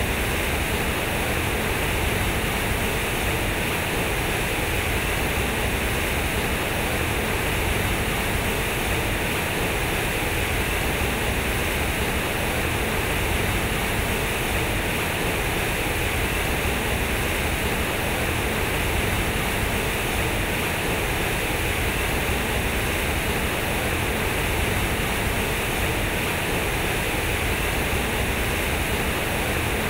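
Water pouring out of a concrete fountain's square spouts and splashing down into its pool, a steady rushing that does not change.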